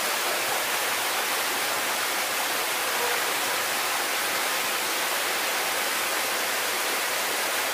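Steady rushing of running water, an even hiss that holds at one level throughout.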